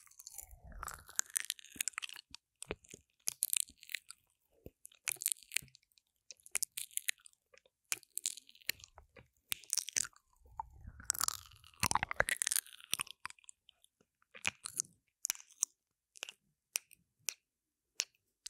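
Close, wet mouth sounds on the silicone ear of a binaural microphone: lips and tongue smacking, sucking and clicking in irregular clusters with short pauses. A low muffled rumble comes in twice, about a second in and again past the middle, and the sounds thin to scattered single clicks near the end.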